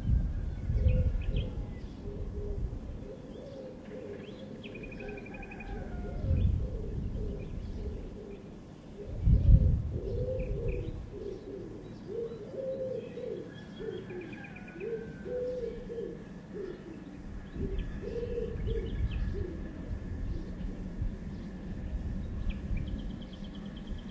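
Recorded birdsong played back on a Unitra Uwertura M1417S reel-to-reel tape recorder: a dove cooing in repeated low phrases, with small birds chirping higher up. A few low rumbles come through, the loudest about nine seconds in.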